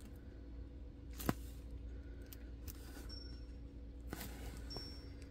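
Faint handling noise of a diamond-painting canvas in its clear plastic film: soft crinkles with a sharper tap a little over a second in and another just after four seconds, over a low steady hum.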